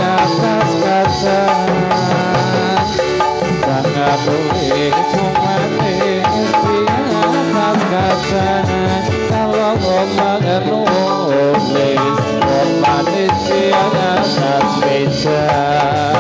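Dolalak dance accompaniment: hand drums such as kendang and a large bedug play a brisk, steady rhythm under a continuous melody.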